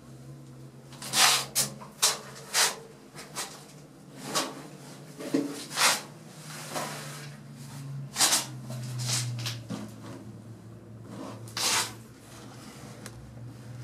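Footsteps scuffing and crunching on grit and debris on a concrete bunker floor, an irregular run of short scrapes, over a low steady hum. The small concrete room gives them a close, boxy sound.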